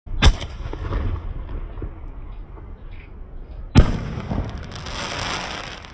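Aerial fireworks bursting: a sharp bang just after the start and another about four seconds in, each followed by crackling, the second crackle lasting over a second.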